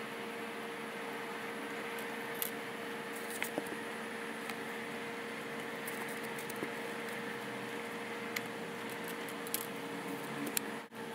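Steady background hiss with a faint hum, and a handful of small, sharp clicks scattered through it.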